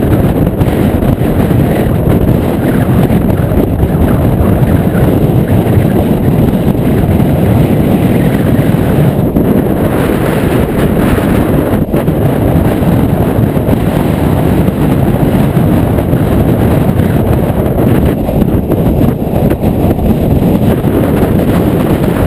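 Very strong wind blowing across a chest-mounted GoPro's microphone: a loud, steady low rumble of wind noise.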